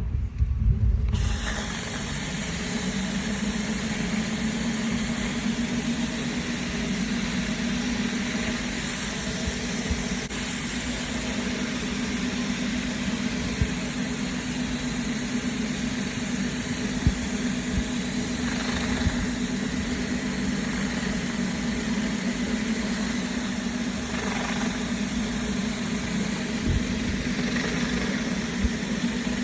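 Pressure washer running: a steady engine drone under the hiss of high-pressure water spray, starting about a second in and holding steady.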